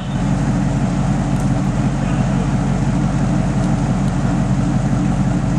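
Toyota rock crawler's engine running steadily at low revs as it crawls up a boulder ledge.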